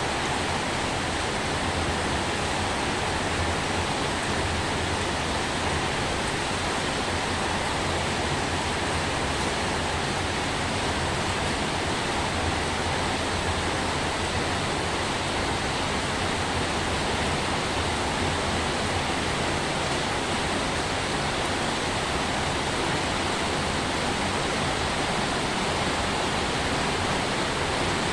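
Steady heavy rain: a dense, even hiss with no single drops standing out and no change in level.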